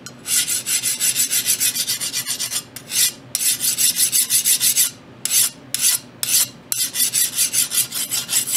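A steel hand file scraping back and forth across a freshly quenched steel knife blade in quick strokes, about five a second, in several runs with short breaks. This is a file test of whether the quench has hardened the blade.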